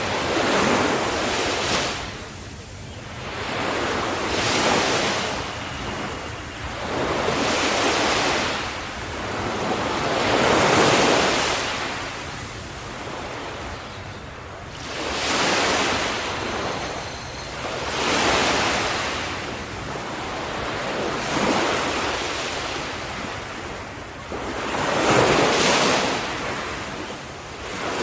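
Ocean waves washing onto the shore. Each wave is a rushing hiss that swells and fades, coming again every few seconds.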